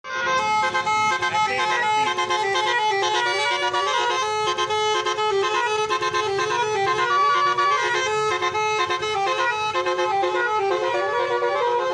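Telolet basuri multi-tone horn playing a continuous melody, its notes stepping quickly from one pitch to the next.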